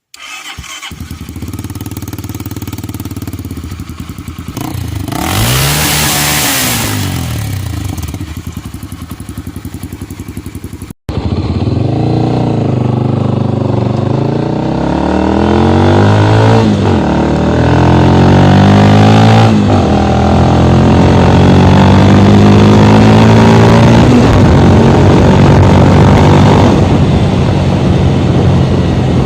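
Honda CB 300's single-cylinder engine through an aftermarket Fortuna mini sport exhaust: it starts and idles, and is revved once about five seconds in. After a cut it runs loudly under way, its pitch rising and falling again and again as it accelerates and shifts.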